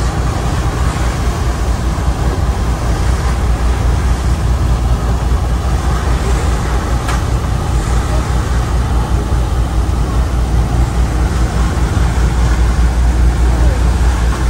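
Steady low drone of a car ferry's diesel engines running under way, with a constant noisy rush over it.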